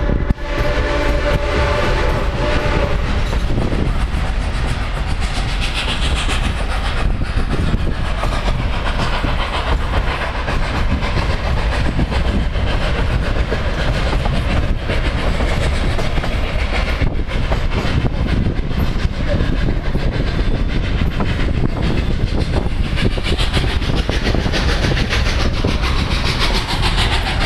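Narrow-gauge steam train heard from a moving open car: the locomotive's steam whistle blows for about three seconds at the start, then the cars rumble and clatter steadily over the rails.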